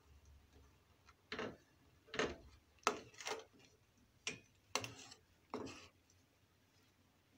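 Metal spoon clinking and scraping against the side of a metal pot about seven times, at an uneven pace, while stirring mole paste into hot chicken broth to dissolve it.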